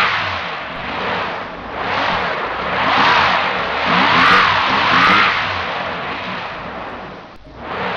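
Vehicle engines revving hard, the pitch rising and falling over and over, about once a second, as the stuck dump truck is pushed out of the mud. The sound drops away briefly near the end.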